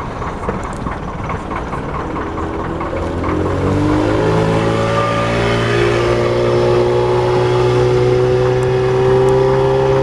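Motorboat engine speeding up: from about two seconds in its pitch climbs, then holds steady at running speed, over a rush of water and wind noise.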